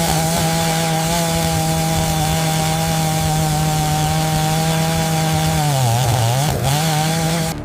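Chainsaw running at high, steady speed; about six seconds in its pitch sags and wavers as it bogs down in the cut, then recovers. It cuts off abruptly near the end.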